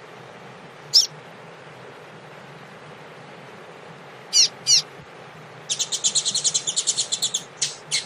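Double-collared seedeater (coleiro) singing a short tui-tui song. A single high downslurred note comes about a second in and a quick pair of notes around four seconds in, then a fast trill of about eight notes a second lasting a second and a half and ending in a few separate notes, all over a steady hiss.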